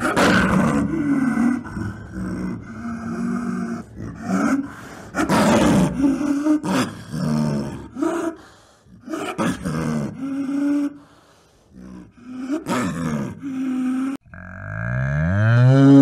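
A big cat calling in a string of short calls, each a second or so long, with brief pauses between them. Near the end a cow starts a long moo that rises in pitch and is the loudest sound.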